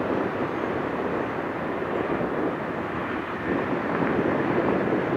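Jet airliner engines running, a steady rush of noise with no sharp changes.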